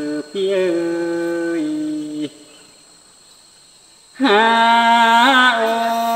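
Tai folk love-song singing (hát giao duyên): one voice holding long, drawn-out notes, the first stepping down in pitch and breaking off about two seconds in, then after a short pause a new long note begins, its pitch wavering.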